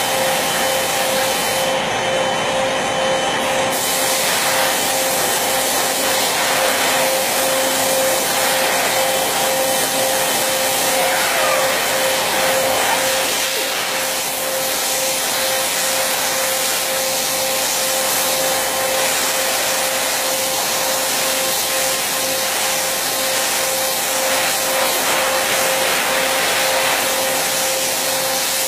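CNC router running steadily while routing wood: a constant high whine from the spindle over an even rushing noise.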